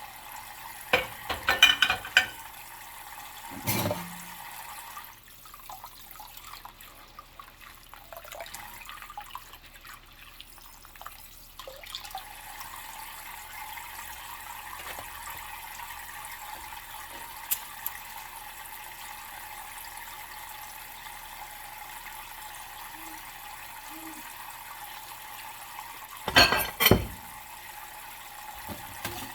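Water running from a kitchen tap into a sink while dishes are washed by hand in rubber gloves. Short loud clatters of dishes being handled come about a second in and again near the end.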